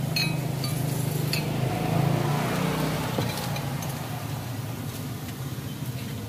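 Ceramic bowls and spoons clinking a few times over a steady low engine hum, the hum swelling a little partway through.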